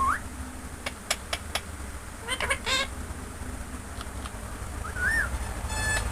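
Ringneck parrot calling: a few sharp clicks, a short run of chirps, and a brief rising-and-falling whistled note, with a short buzzy trill near the end.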